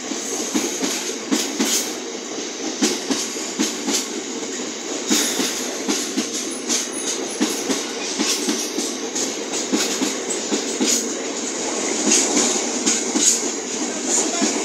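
Freight train tank wagons rolling past at close range: a steady rolling rumble of steel wheels with a constant run of clicks and knocks as the wheels pass over rail joints.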